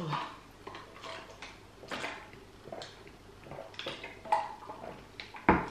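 Coca-Cola being sipped through a straw from a large paper cup, with soft clicks and knocks as the cup is handled, and a sharper knock about five and a half seconds in as the cup is set down on its wooden coaster.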